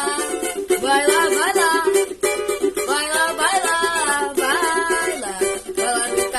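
Samba-pagode music: a strummed cavaquinho keeping a steady chord rhythm with voices singing over it.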